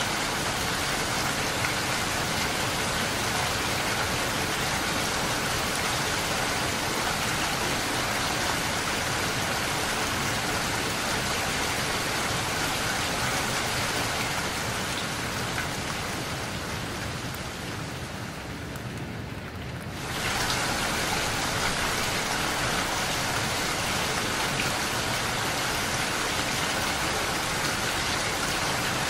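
Steady rain pitter-pattering on a window pane. About two-thirds of the way through it thins and fades for a few seconds, then comes back suddenly at full strength.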